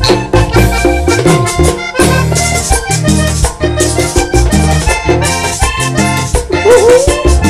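Live band playing an instrumental break in a Latin American dance song: accordion melody over hand percussion and bass with a steady beat.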